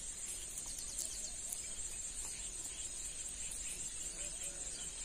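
Steady high-pitched drone of insects, with short bird chirps now and then.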